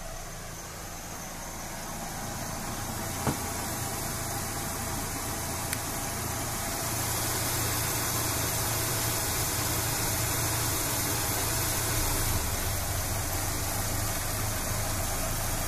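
Warmed-up Ford Ranger pickup engine idling steadily, growing louder over the first several seconds as the microphone nears the open engine bay. A single sharp click comes about three seconds in.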